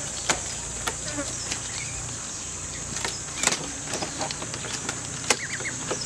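A spoon clicking a few times against a bowl during eating, sharp single clicks a second or more apart. Behind it runs a steady high-pitched insect drone.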